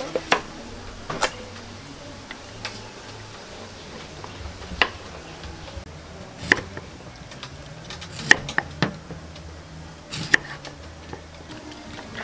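Kitchen knife cutting through sweet potato and striking a wooden chopping board in sharp, separate knocks, about seven of them at irregular intervals of one to two seconds.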